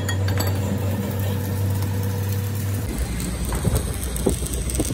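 Stick (arc) welding on a steel truck drive shaft: a welding machine's steady hum, then, from about three seconds in, the arc crackling in short irregular pops over a lower rumble.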